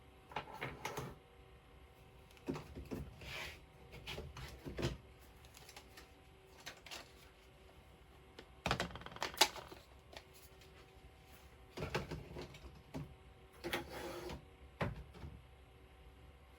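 Plastic craft ink pads clicking and clattering as they are picked up, opened and set down on a desk, in four bursts of sharp clicks and knocks; the loudest burst comes a little past halfway.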